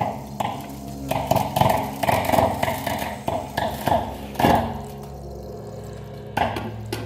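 Hand well winch with a steel-cable drum creaking and knocking in a run of uneven strokes as a man is lowered down a concrete-ring well, over a steady low hum.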